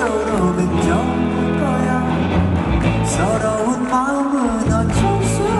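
A male lead singer sings a Korean ballad over live band accompaniment, his voice gliding between held notes above sustained bass.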